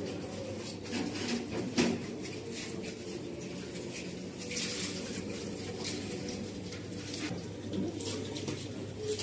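Kitchen items being handled: a few light knocks and clinks, with a short hiss about halfway through, over a steady low hum.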